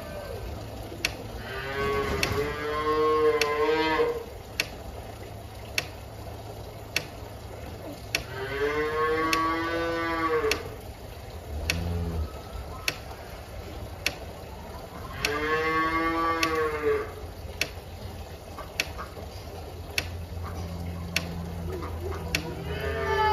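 Cattle mooing: three long, drawn-out moos several seconds apart, with a fourth beginning near the end. A sharp tick sounds about once a second throughout.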